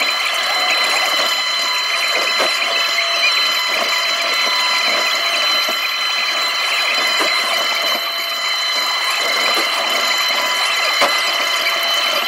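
Takeuchi TB290 excavator's diesel engine and hydraulics running steadily while the bucket digs soil, heard from inside the cab. A constant high whine runs throughout, with a few light knocks from the digging.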